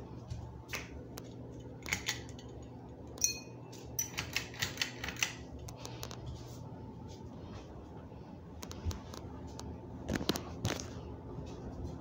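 Hampton Bay Huntington III ceiling fan running with a steady low hum. Sharp clicks and taps come over it about two seconds in, in a quick cluster from about three to five seconds, and again around ten seconds.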